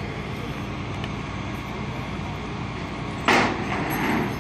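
Steady hum of street traffic and idling vehicles. About three seconds in, a sudden loud rush of noise breaks in and fades over about a second.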